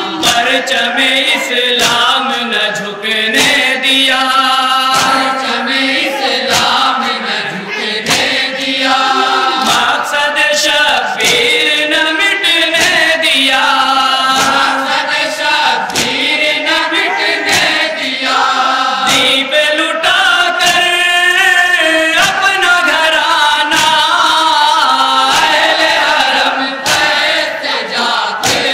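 A chorus of men chanting a noha, a mourning lament, in held, wavering lines, over a steady beat of sharp slaps from mourners striking their chests in matam.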